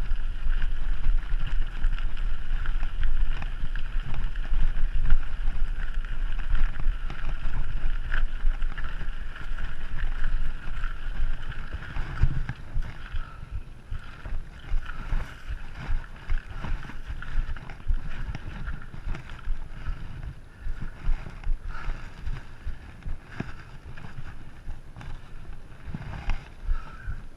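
Wind rumbling on the microphone while riding a mountain bike, with many small knocks and rattles from the ride. The low rumble eases about halfway through.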